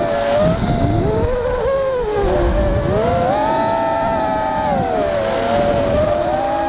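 FPV quadcopter's electric motors and propellers whining, the pitch rising and falling repeatedly as the throttle changes through dives and turns, over a low rumble of wind on the onboard microphone.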